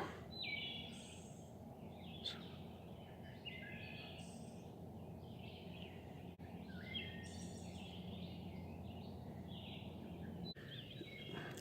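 Wild songbirds singing faintly, with short high chirping phrases repeating through, over a steady low background hum of outdoor noise.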